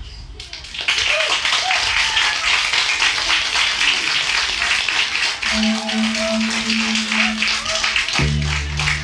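Audience clapping and cheering once the loop stops, a dense crackling of many hands. About eight seconds in, low electric cello notes start beneath it.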